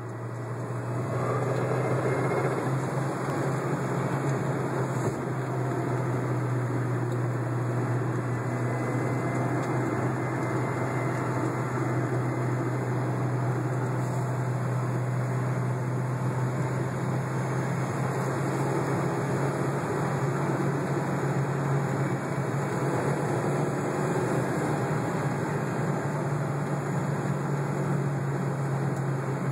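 Car running on the move: a steady low hum over even engine and road noise, holding constant for the whole stretch.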